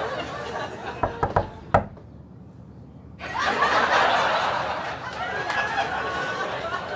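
People laughing and snickering. About a second in come four quick, sharp knocks, then a short muffled lull before louder laughter starts again.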